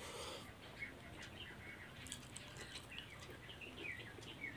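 Small birds chirping on and off, short quick chirps, over faint clicks of a person eating rice by hand.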